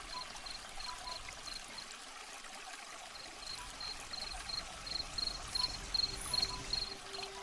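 Forest ambience: an insect chirping high and evenly, about three chirps a second, over a steady trickle of running water.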